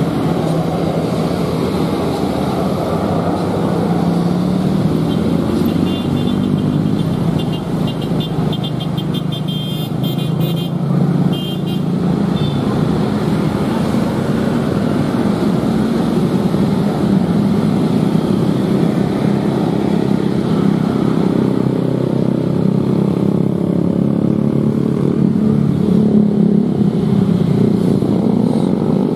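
Slow road traffic on a hill: motorcycle and car engines running steadily as vehicles creep past. Between about six and twelve seconds in, a high-pitched horn sounds in a quick series of short toots.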